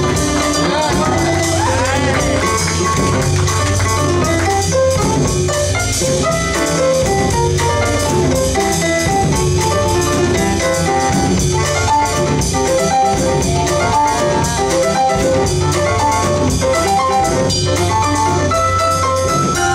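Live jazz band playing with a steady beat: acoustic piano, upright double bass and drum kit.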